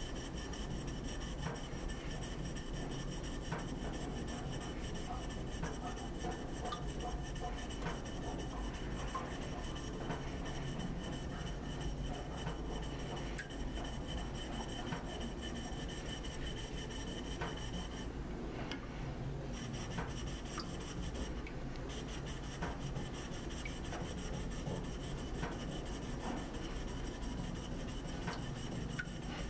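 A steel blade being sharpened on a wet whetstone: steady gritty rubbing as it is pushed back and forth across the stone under fingertip pressure.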